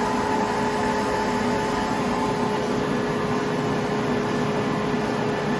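1993 Okuma Howa ACT 4 CNC lathe running under power: a steady mechanical hum with a constant whine of several fixed pitches.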